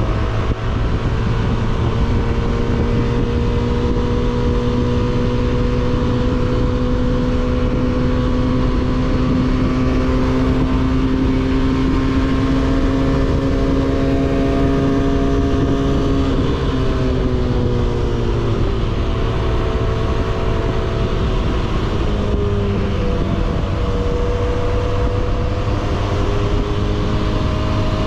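300cc motorcycle with an aftermarket 302s exhaust running under way, heard on board. Its note climbs slowly for about sixteen seconds, drops away, then climbs again near the end.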